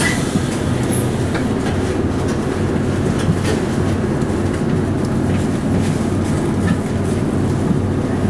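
Interior of a Hino Blue Ribbon city bus: the steady low hum of its diesel engine while the bus stands or crawls, with a few faint clicks and rattles.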